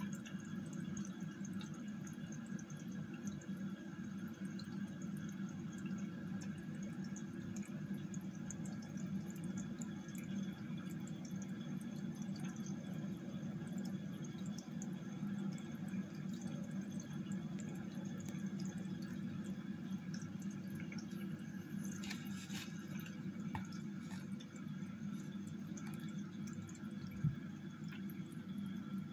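Reef aquarium's water circulation: a steady low pump hum with water trickling and dripping. A single short knock sounds near the end.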